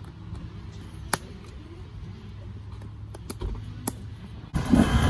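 Motocross boot buckles clicking shut, a few sharp separate clicks over a low rumble. About half a second before the end the sound jumps to a loud dirt bike engine revving.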